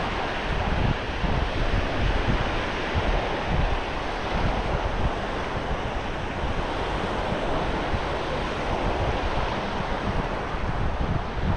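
Wind buffeting the microphone over a steady wash of small waves breaking on a sandy beach.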